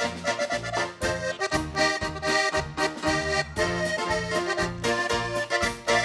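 A polka band playing live: the accordion carries the tune over a drum kit keeping a steady beat.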